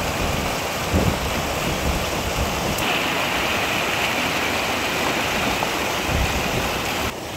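Fast mountain stream rushing and splashing over rocks and small cascades, a steady loud rush of water whose tone shifts about three seconds in, with a low bump about a second in.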